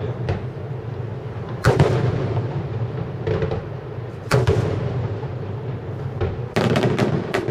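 Aerial fireworks shells bursting in loud booms: a big one about two seconds in and another just after four seconds, then a quick run of several reports near the end. Each burst trails off in a rolling echo.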